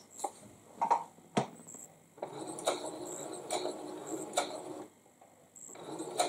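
Electric domestic sewing machine stitching a seam through quilt cotton: a couple of short knocks first, then the machine runs steadily for about two and a half seconds, stops briefly, and starts stitching again near the end.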